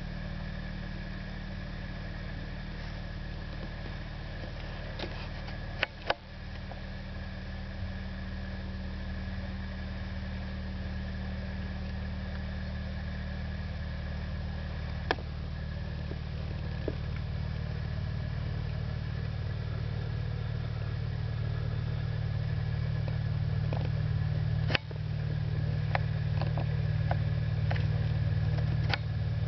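Excavator's diesel engine running steadily, slowly growing louder, with a few sharp knocks or clicks over it, several of them near the end.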